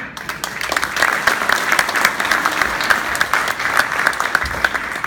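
Audience applauding, many hands clapping fast and densely; it swells over the first second and then holds steady.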